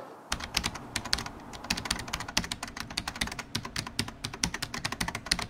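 Old-film crackle sound effect: a dense, irregular run of sharp clicks and pops, like a worn film reel running, starting a moment in.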